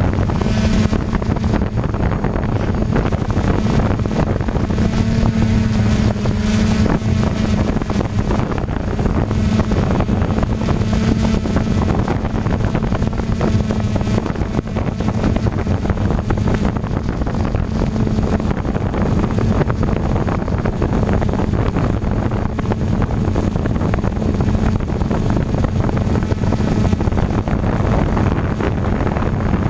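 Steady hum of a multirotor drone's motors and propellers, picked up by the drone's own onboard camera, with wind rushing over the microphone.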